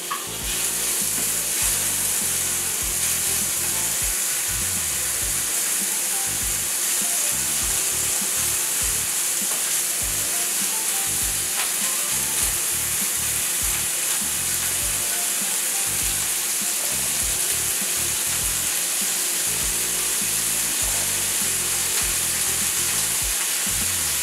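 Diced applewood bacon sizzling and frying steadily in a smoking-hot cast iron skillet with a little olive oil, a wooden spoon stirring through it. The hiss is dense and high and swells up about half a second in.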